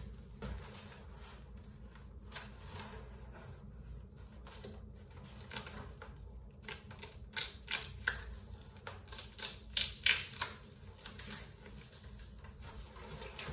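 Clear plastic wrapping on a canvas print crinkling and tearing as it is pulled and cut off, with the cardboard box rustling: a run of sharp crackles that starts about a third of the way in and is loudest a little past halfway.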